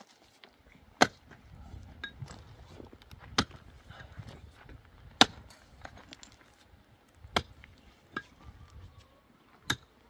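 Mattock striking hard, stony dry soil, about six separate blows spaced one to two seconds apart, each a sharp crack and thud as the blade bites into the ground.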